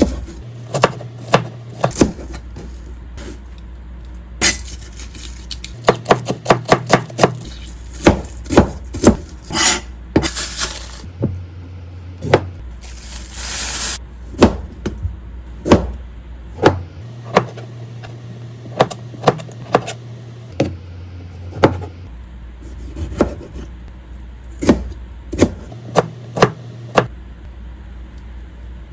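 Kitchen food prep: a knife striking a cutting board in irregular runs of quick chops, with clatter and a couple of brief scraping sounds.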